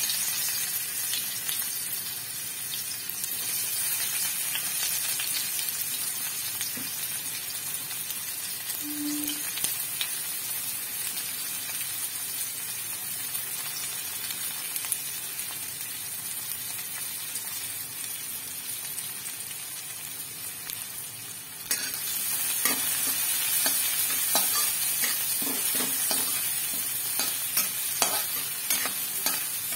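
Chopped onion sizzling in hot oil with cumin seeds in a kadhai, a steady hiss. About two-thirds of the way through the sizzle gets louder, and a metal spatula stirs and scrapes against the pan with quick repeated clicks.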